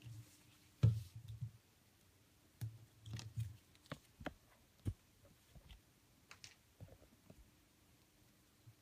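Scattered light clicks and knocks of toiletries being taken out and handled at a bathroom sink, the loudest about a second in.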